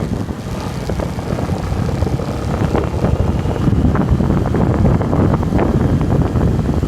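Wind buffeting the microphone of a moving bike on a downhill run, a loud steady rumble, with scattered short knocks and rattles throughout.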